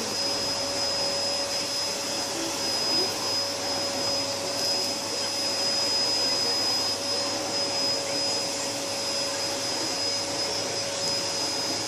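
Vacuum cleaner running steadily: an even motor rush with a steady whine in it.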